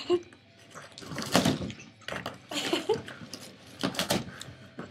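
A Boston Terrier clawing and biting at a large cardboard box: irregular scratching and tearing of cardboard, with three louder rips, about a second and a half in, near the middle, and near the end.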